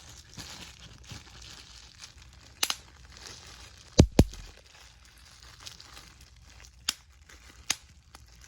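Five sharp pops, the loudest a close pair about halfway through, over a steady crinkling as something is handled.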